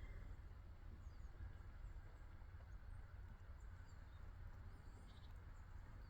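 Faint, scattered high chirps and short calls of small birds, with a slightly clearer call about five seconds in, over a steady low rumble.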